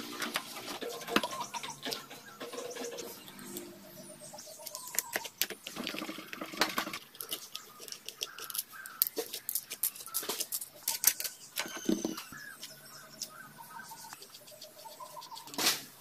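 Sharp metallic clicks and clinks as the clutch parts of a small single-cylinder motorcycle engine are taken apart by hand, with short bird chirps in the background.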